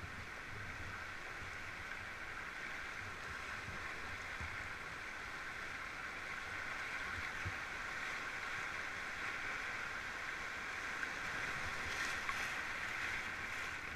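Shallow river rapids rushing steadily past an inflatable raft, with brief brighter splashing near the end as the raft runs through whitewater.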